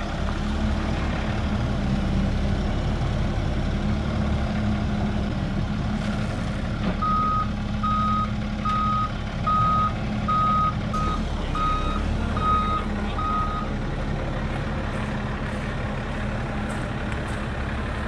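Volvo wheel loader's diesel engine running steadily, with its reversing alarm beeping about nine times in a row from about seven seconds in.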